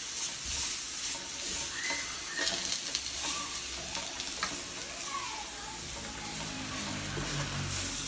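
Small whole potatoes and garlic paste sizzling in a stainless steel frying pan on low heat while being stirred and turned, moved so the garlic does not burn.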